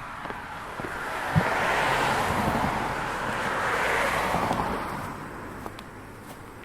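A car passing on a nearby road: tyre and engine noise rising over about two seconds, holding, then fading away.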